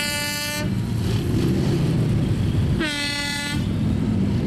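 Two toots of a vehicle horn, each under a second, about three seconds apart, over the steady low rumble of a procession of motorcycles riding past.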